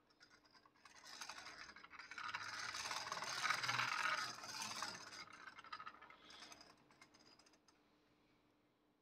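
Home-built CNC lathe's stepper-driven carriage and cross slide traversing a test contour with an empty chuck, a fast rattling mechanical noise. It swells from about a second in, is loudest midway and dies away shortly before the end.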